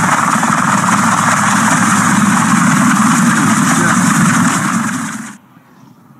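Tandem-rotor helicopter's turbine engines and rotors in low flight: a steady, high turbine whine over dense rotor noise, which drops away suddenly about five seconds in.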